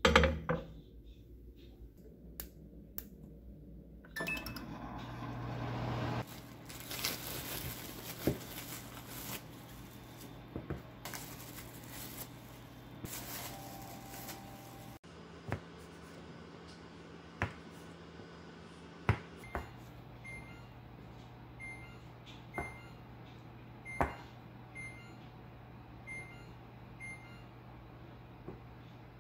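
A baking tray slides into an oven with a clunk, then the oven's fan runs with a steady low hum. Later a plastic knife cuts cookie dough on a silicone baking mat in several sharp taps, over the hum and a row of faint electronic beeps.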